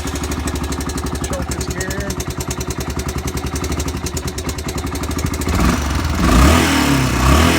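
1987 Honda Foreman four-wheeler's single-cylinder four-stroke engine running just after starting, idling with a rapid, even beat. About five and a half seconds in it grows louder and uneven, its pitch wavering.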